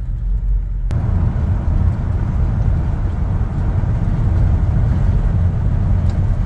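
The 302 (5.0-litre) V8 of a 1966 Ford F100 pickup running steadily under way, with a low rumble heard from inside the cab. About a second in, road and wind noise step up and hold steady.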